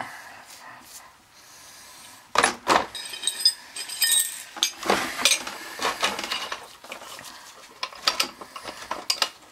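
Metal oil-burner parts clinking and clanking as they are set down and handled in a sheet-metal tray, with a wrench in use near the end. After a quiet couple of seconds come a series of irregular sharp knocks, some with a brief metallic ring.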